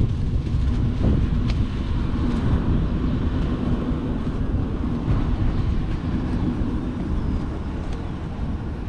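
Wind buffeting the microphone, with a faint steady hum underneath.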